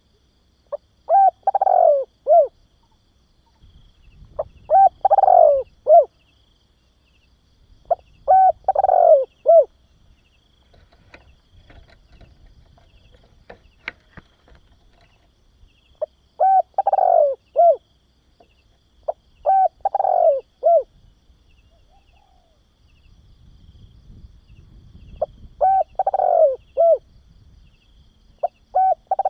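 Spotted dove cooing: short phrases of three or four low coo notes, repeated about every three to four seconds, with a gap of about six seconds near the middle.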